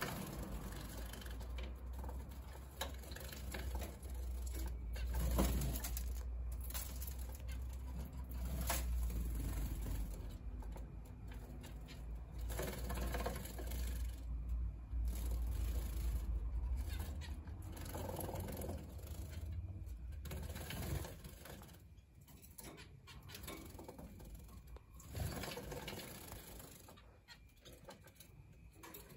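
Gouldian and zebra finches splashing and fluttering in a plastic clip-on bird bath, in many short bursts, with scattered finch chirps. A low background hum runs under it and stops about two-thirds of the way through.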